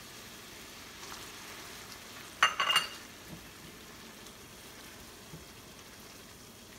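Tomato sauce with olives and capers sizzling steadily in a stainless steel sauté pan while being stirred with a silicone spatula. A short, loud clatter comes about two and a half seconds in.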